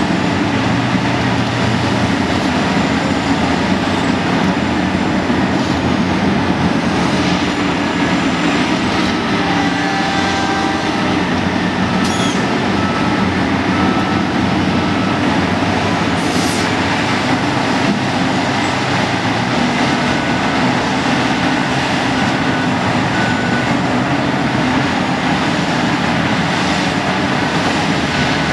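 Repowered Caterpillar 5130 hydraulic excavator's diesel engine running steadily under load as it digs and swings, with short high tones coming and going and a couple of brief sharp metallic sounds near the middle.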